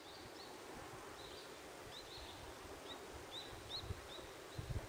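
Small birds' short high chirps, repeated irregularly every half second or so, over a faint steady outdoor background hiss, with a few low wind thumps on the microphone near the end.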